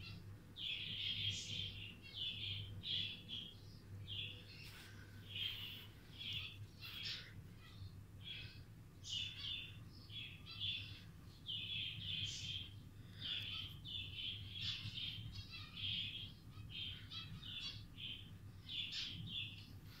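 Lutino budgerigar chirping over and over: a string of short, high calls, about one or two a second.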